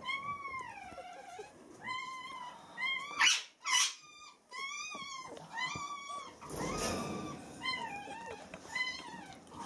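Week-old beagle puppies whimpering: a string of high, thin cries that rise and fall in pitch. Two short, louder noises come about three seconds in, and there is rustling of the fleece bedding as they are handled.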